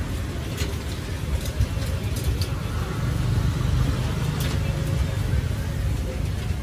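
Street traffic with engines rumbling steadily, swelling a little about halfway through, and a few light clicks on top.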